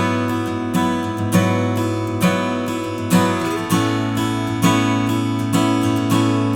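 Sigma DM dreadnought acoustic guitar strummed in a steady rhythm, about two strums a second over ringing chords, moving to a new chord a little past halfway.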